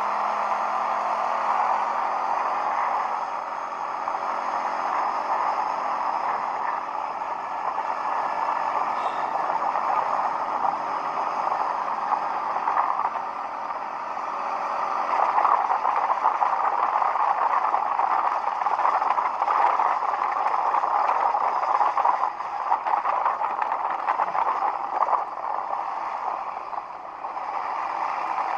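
ATV engine running steadily, getting somewhat louder about halfway through.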